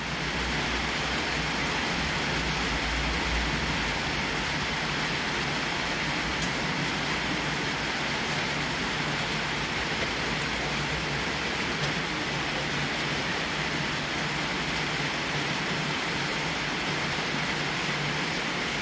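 Steady rain falling during a thunderstorm, an even hiss, with a low rumble underneath for the first three seconds or so.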